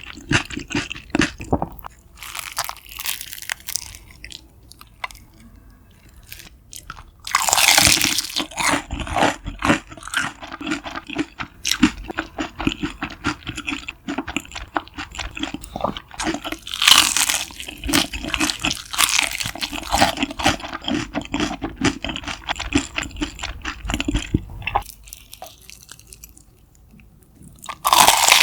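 Close-miked eating: loud crunchy bites into fried food followed by crackly chewing, with the biggest crunches about a third of the way in, past the middle, and at the very end.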